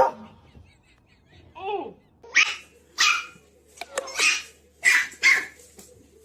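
A dog barking: about five short, sharp barks spread over the last four seconds, after one short call that rises and falls in pitch.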